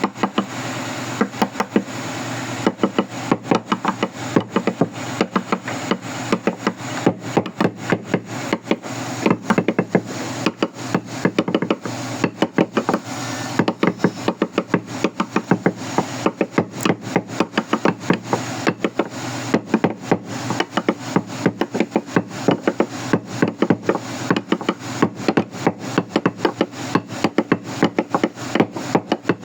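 Wood being struck over and over in hand woodworking, sharp knocks coming about two to three a second with little let-up, over a steady background sound.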